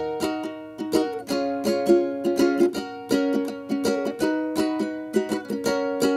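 Background music: a light tune of plucked-string notes in a steady rhythm.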